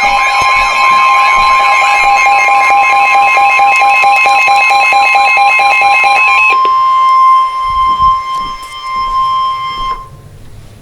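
Emergency alert tones: a pulsing, warbling multi-tone alarm for about six and a half seconds, then a single steady high tone that cuts off about ten seconds in.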